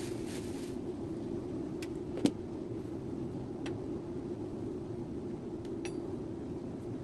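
A few light plastic clicks and one sharper knock about two seconds in, from hands handling the motorcycle's plastic air filter box and its hoses, over a steady low background hum.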